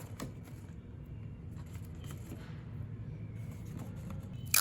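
A couple of light clicks as clips are taken off a card-stock craft, then faint handling over a steady low hum.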